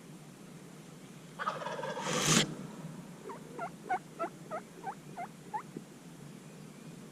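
A wild turkey gobbler gobbles once, a rattling call about a second long, followed by a run of about eight evenly spaced turkey yelps.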